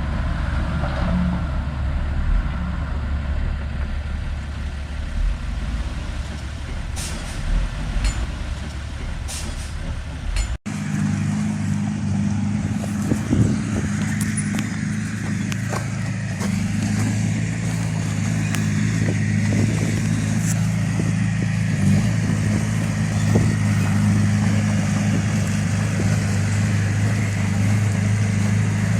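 Heavy diesel machinery engine running: a low rumble with a few clicks at first, then after a brief dropout about ten seconds in, a steady, even engine note.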